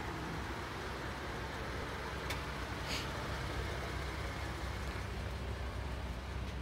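Ford F-150 pickup idling, a steady low rumble, with a sharp click about two seconds in and a short hiss just after.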